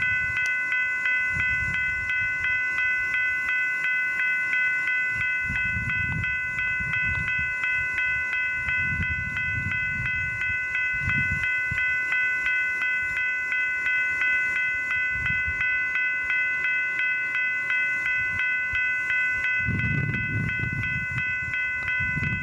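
Railroad grade-crossing bell ringing steadily, about two to three strikes a second. Under it, a freight train passes with an uneven low rumble and clatter of railcar wheels on the rails.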